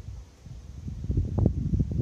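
Wind buffeting the microphone: an irregular low rumble that comes in gusts, dipping early on and building again in the second half.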